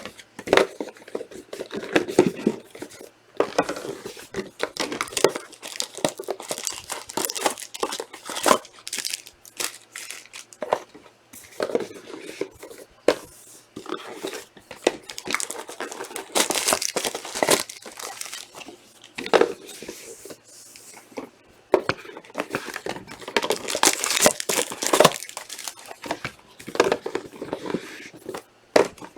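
Trading card packaging being torn open and crinkled by hand: a long run of irregular crackles, rustles and tearing.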